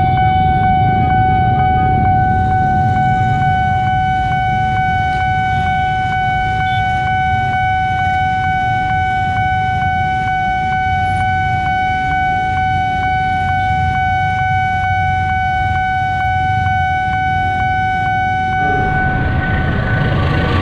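Railway level-crossing warning alarm sounding one steady high tone, held unchanged over the low rumble of idling motorcycles and cars waiting at the closed barrier. Near the end the alarm stops and a louder rumble of the approaching train comes in.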